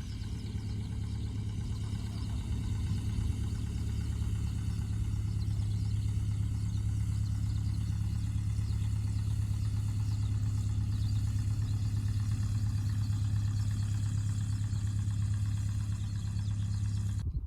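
An engine running steadily at idle, a constant low hum that cuts off suddenly near the end.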